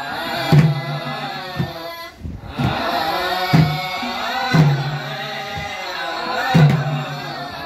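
Several voices singing a chant-like Gurung (Tamu) song together, accompanied by a madal, a two-headed barrel drum, whose deep, ringing bass strokes fall every one to two seconds. The singing breaks off briefly about two seconds in.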